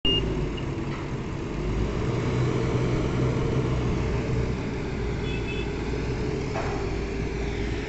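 Diesel engine of concrete-pouring machinery running steadily: an even, unbroken mechanical drone.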